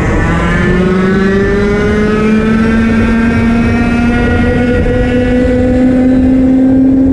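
125cc two-stroke TAG kart engine at full throttle, heard onboard, its pitch climbing steadily as it pulls down the straight and falling away right at the end as it comes off the throttle.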